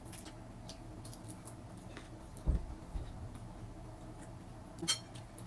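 Scattered light clicks and taps of utensils and dishes being handled, with a dull thump about halfway through and a sharper click near the end.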